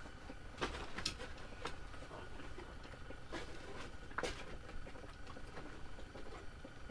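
Quiet handling and clothing rustle with a few faint sharp clicks over a steady low hiss.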